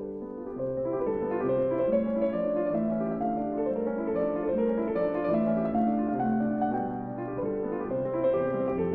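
Classical piano music: a melody of held notes over a lower accompaniment, growing louder about a second in.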